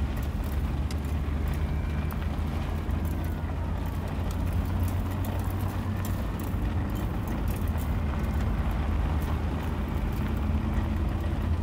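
Steady low rumble of a car driving, heard from inside the cabin: road and engine noise at an even level.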